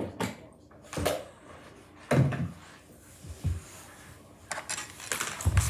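A few separate knocks and clatters of objects being handled and set down, the loudest about two seconds in, then a busier stretch of rustling and clatter near the end.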